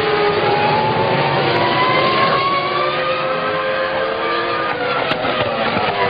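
McLaren Formula 1 car's 3.0-litre Mercedes-Ilmor V10 running at high revs. Its pitch climbs steadily over the first two or three seconds as the car accelerates, then holds.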